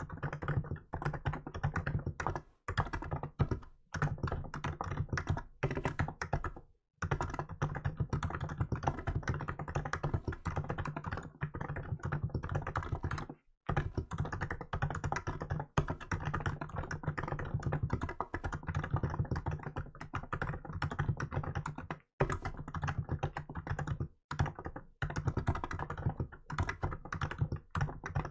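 Rapid continuous typing on a Hansung GK868B electro-capacitive keyboard with milk keycaps, key strokes coming in quick runs broken by short pauses several times.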